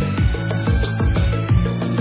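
Music with a steady, even beat and held notes over it.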